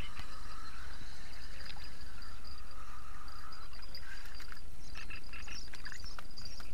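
Lakeside evening chorus: insects chirring steadily in a high thin tone while frogs call, with a run of short croaking calls near the end, all over a steady low rumble.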